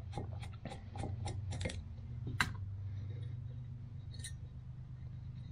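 Light metallic clicking of a hand tool working the small spring-loaded fast-idle arm loose on a Holley Model 94 carburetor. There is a quick run of clicks in the first two seconds and one sharper click about two and a half seconds in, over a low steady hum.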